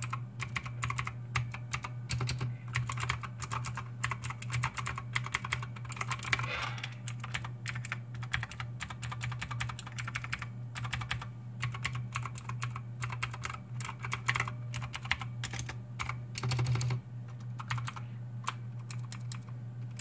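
Typing on a GamePower Ogre RGB mechanical keyboard with clicky Blue switches: rapid, irregular keystroke clicks in quick runs, thinning out a little in the last few seconds. A steady low hum runs underneath.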